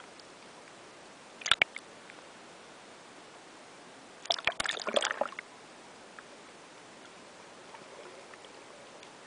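Water splashing and sloshing around the camera as it breaks the surface: a short splash about a second and a half in, then a longer burst of splashing around four to five seconds in, over a faint steady underwater hiss.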